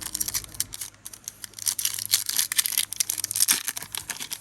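Foil Pokémon booster pack wrapper crinkling and tearing as it is opened, a dense run of small crackles that grows busier after about a second and a half.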